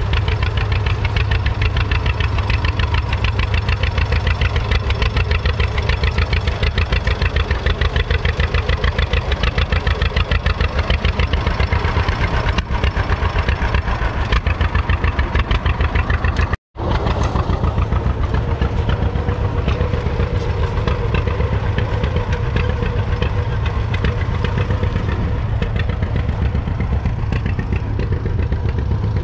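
1940 John Deere BR's two-cylinder all-fuel engine running with a steady, rapid exhaust beat as it works under load pulling a two-furrow trailed plough through the soil. The sound cuts out for an instant about two-thirds of the way through, then carries on unchanged.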